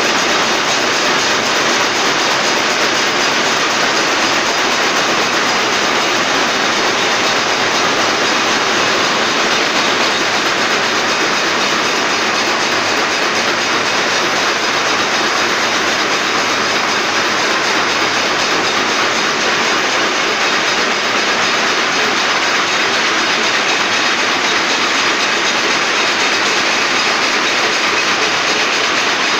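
Loud, steady mechanical running noise that carries on without a break or change.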